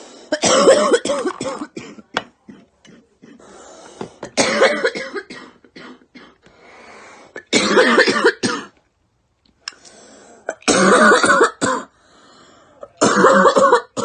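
A girl coughing in repeated fits: five hoarse, voiced bouts of about a second each, roughly three seconds apart, with faint breathing between them.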